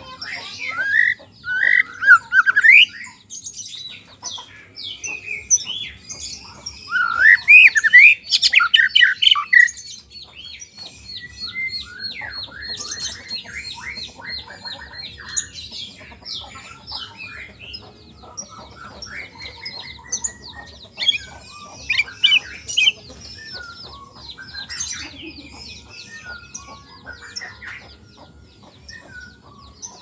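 White-rumped shama singing: two loud bursts of varied, gliding whistled phrases in the first ten seconds, then quieter rapid twittering and chattering notes with scattered calls. A faint steady high-pitched tone runs underneath.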